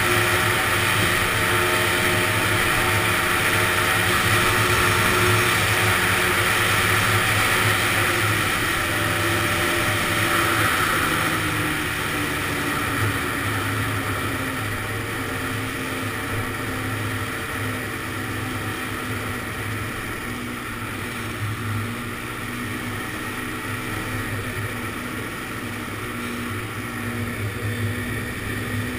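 Honda ATC 250R's two-stroke single-cylinder engine running under way on the ice. It holds a steady high note, then eases off about twelve seconds in, the pitch falling and settling at a lower, steady note.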